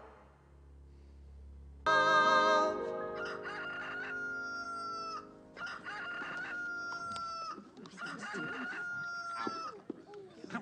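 Three long crowing calls, each holding one pitch and sliding down at the end, over a held musical chord that starts suddenly about two seconds in.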